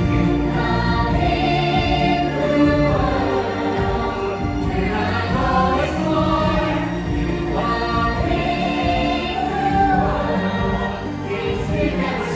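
A choir sings over a full musical backing track, steady and loud throughout.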